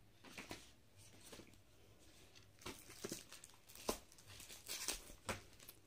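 Comic books being handled, pages flipped and covers shuffled: faint paper rustling and crinkling with a few sharper flicks, the sharpest about four seconds in.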